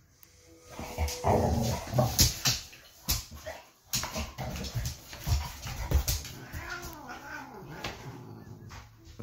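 Pit bull vocalizing in rough play, with whines that bend up and down about two-thirds of the way through, amid repeated thumps and scuffling as it spars with a cat.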